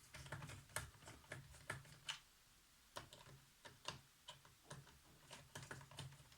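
Faint, irregular clicks and ticks of a small screwdriver turning out the tiny screws that hold a laptop keyboard, over a low hum that comes and goes.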